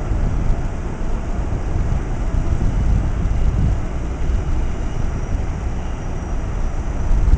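Distant R142A subway train running along an elevated steel line: a steady low rumble, with wind buffeting the microphone.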